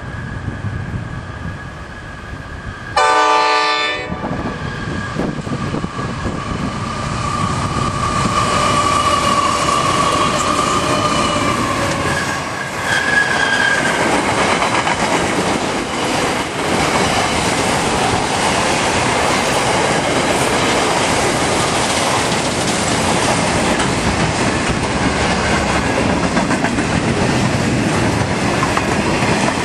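Intermodal freight train hauled by two NR-class diesel-electric locomotives passing: one short horn blast about three seconds in, then the locomotives and wagons build to a steady, loud rumble with clickety-clack of wheels over the rails. Thin high-pitched tones come and go along the way.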